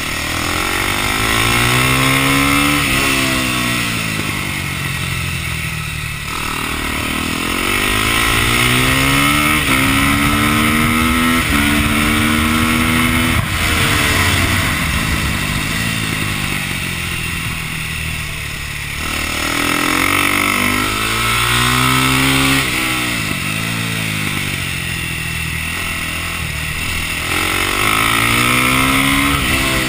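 KTM supermoto motorcycle engine heard from on board under hard racing. Its pitch climbs and drops back at each upshift, then falls away as it slows for corners, and this repeats several times. Steady wind rush runs underneath.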